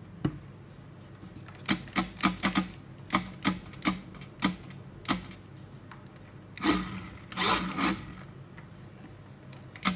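Plastic remote-control toy car driven in short jerky bursts on a tabletop: a string of quick clattering spurts from its little electric motor and wheels, then two longer spurts a little past the middle.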